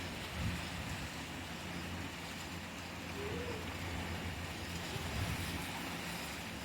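Steady rain falling, with a low rumble underneath that swells now and then.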